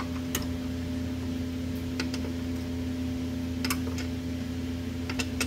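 A few light metallic clicks of a wrench working nuts on a Carter BBS one-barrel carburetor, over a steady hum from a shop heater.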